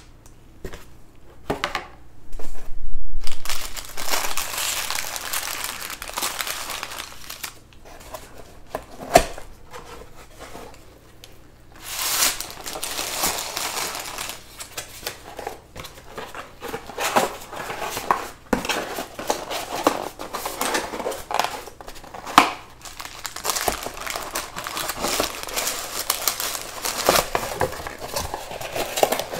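Plastic or paper packaging being crinkled and handled in irregular rustling spells, with a few sharp knocks along the way.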